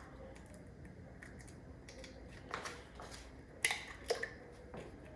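A few light knocks and clicks from kitchen ingredients and utensils being handled at the counter, with the two sharpest taps a little past the middle.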